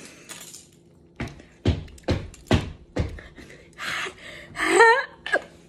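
A woman reacting to the burn of a super-hot chili tortilla chip: a run of about five heavy thumps roughly half a second apart, then a breathy hiss and two short, high, wavering cries of pain.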